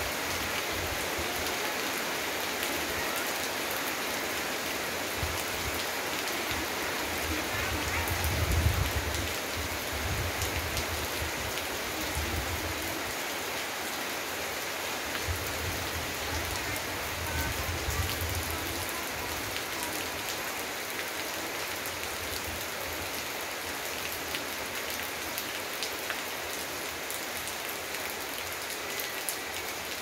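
Steady rain, an even hiss with single drops ticking through it. A low rumble swells now and then, loudest about nine seconds in.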